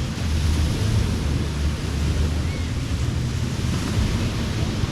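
Ocean surf washing on a beach in a steady hiss, with wind buffeting the microphone in a low, fluctuating rumble.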